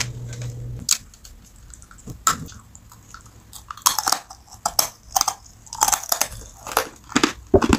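Ribbon candy, thin folded hard sugar candy, being bitten and crunched between the teeth: a run of sharp, irregular cracks and crunches.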